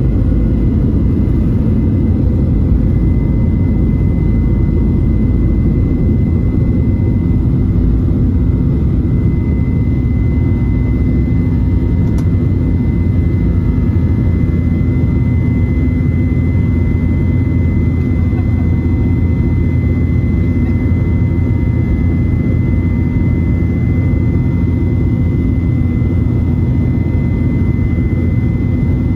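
Cabin noise of a Boeing 737-800 with its CFM56 jet engines running: a steady low rumble with a thin, steady high whine that grows a little stronger about a third of the way in.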